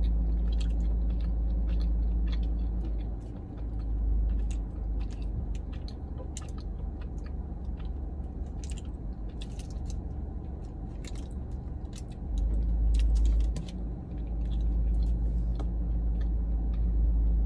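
A person chewing a dense, soft chocolate bourbon ball close to the microphone: many small mouth clicks and smacks, over a steady low rumble.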